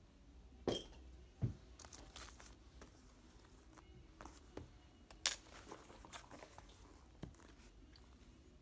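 Cardboard shipping box handled and turned over on a wooden table: a few scattered knocks and taps, the sharpest about five seconds in, with light scraping and rustling between.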